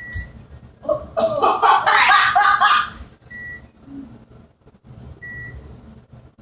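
A burst of laughter, the loudest sound, from about one to three seconds in, with single short electronic beeps from a kitchen appliance's timer keypad at the start and twice more later.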